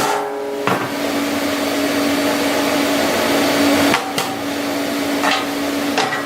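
Steady electrical hum and hiss from welding-shop equipment, with a few sharp metal taps and knocks as steel parts are fitted.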